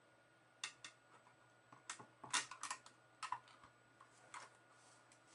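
Scattered clicks and knocks of plastic and metal parts as the optical-drive assembly of an opened Mac Mini is handled and fitted into its case. About half a dozen separate clicks, with the loudest quick cluster a couple of seconds in.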